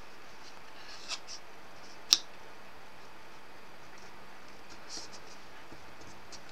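Faint rustles and scrapes of green cardstock shifting under fingers as two glued pieces are pressed together, with one sharp click about two seconds in, over a steady background hiss.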